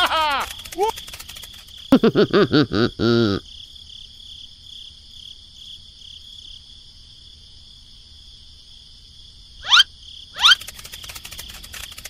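Steady cricket-like insect chirring in the background. About two seconds in comes a quick run of short, squeaky, chattering voice-like calls, and two fast rising whistle-like sweeps follow near the end.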